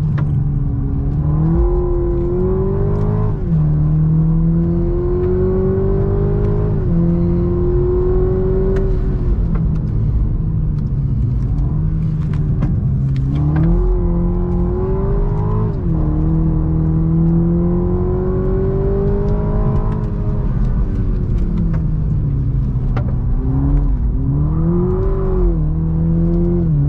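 Toyota GR Supra's turbocharged inline-six accelerating through the gears. The engine note climbs steadily, then drops sharply at each of several upshifts, spaced a few seconds apart.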